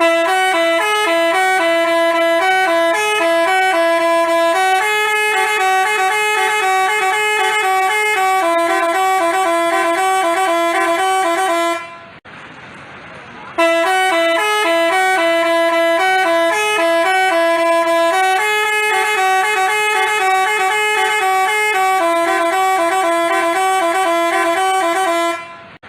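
Basuri telolet horn, a multi-tone bus horn, playing a quick stepped tune; the melody stops briefly about twelve seconds in, then plays through again.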